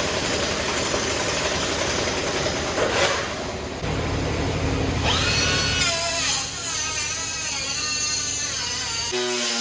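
Electric power tool running continuously. From about halfway through, its whine rises and falls in pitch, and it cuts off shortly before the end.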